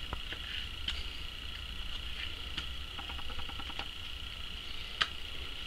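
Small wooden clicks and taps from hive frame parts being handled and marked in a jig, with a sharper click about five seconds in, over a steady high-pitched insect-like buzz.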